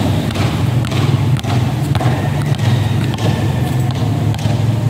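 Basketballs dribbled hard and fast on a concrete court: a quick, steady run of bouncing thuds.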